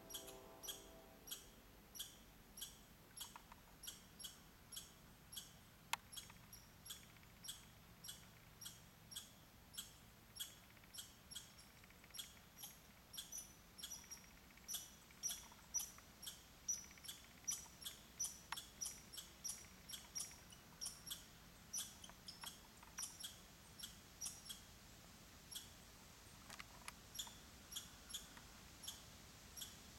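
Faint, repeated short high chirps from a small animal, about one to two a second, coming faster and closer together in the middle.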